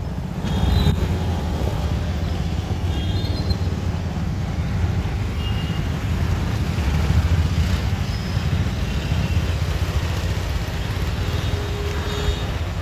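Road traffic on a wet street: motorcycles and cars passing, with a heavy low rumble throughout.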